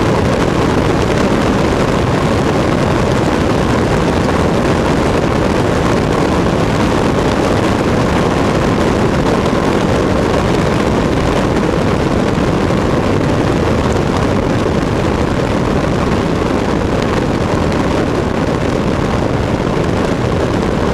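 Cessna 152 in flight, heard from a camera mounted outside the airframe: a steady, loud rush of wind over the housing mixed with the drone of its four-cylinder Lycoming engine.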